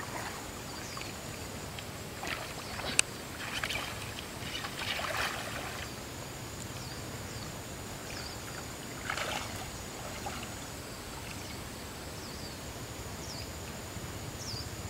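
Soft water sloshing and small splashes as someone wades thigh-deep in a pond, with one sharp click about three seconds in. A thin steady high tone and a few short falling chirps run behind it.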